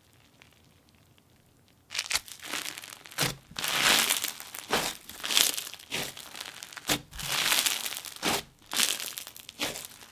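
Crunchy bingsu bead slime being squeezed and pressed by hand. Starting about two seconds in, it gives a quick run of crunching and sizzling bursts as the plastic beads pop and grind.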